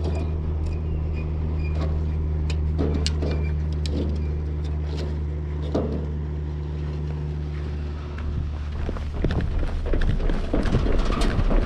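A steady low mechanical hum with scattered light clicks. About eight seconds in, the hum gives way to a louder, rougher rumbling noise.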